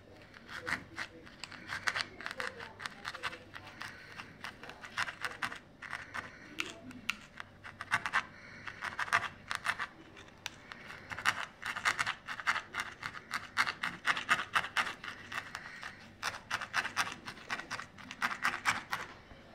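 Felting needle stabbing repeatedly through wool roving into a foam pad: runs of quick, crisp scratchy ticks, several a second, with short pauses between runs.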